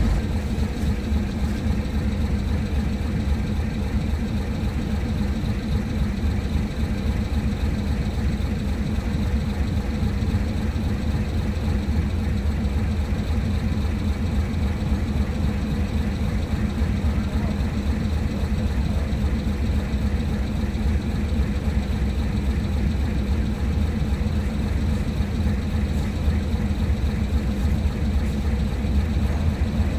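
Narrow-gauge railway diesel engine running steadily at idle, a continuous low drone.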